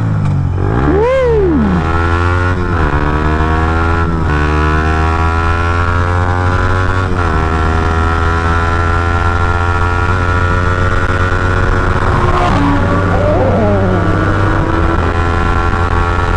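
Sport motorcycle engine heard from the rider's seat: a quick rev about a second in, then the pitch climbing steadily under acceleration and dropping at several gear changes.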